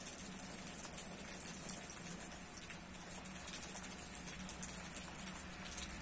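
Hard rain falling on a leafy tree: a steady hiss of countless small drop taps, with one sharper tap about five seconds in.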